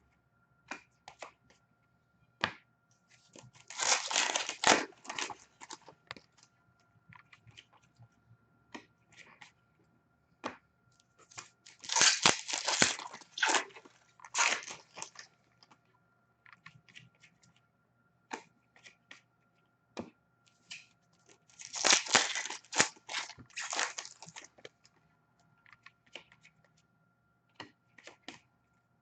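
Hockey card pack wrappers torn open three times, each a loud crinkling rip lasting a second or two, with small clicks and taps of cards being handled in between.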